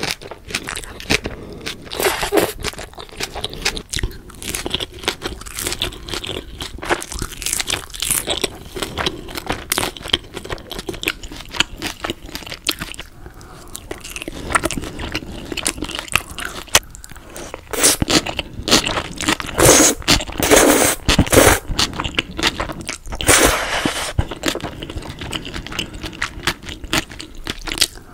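Close-miked eating: jjajangmyeon noodles taken into the mouth and chewed, with crisp crunching bites of fried tangsuyuk pork. The crunches are loudest in a run about two-thirds of the way through.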